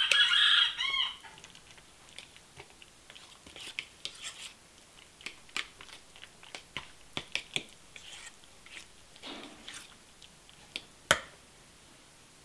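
Fork mashing and stirring soft avocado dip in a stainless steel bowl: a squeaky scrape of the fork against the metal in the first second, then scattered soft squelches and taps, with one sharper clink near the end as the fork is left in the bowl.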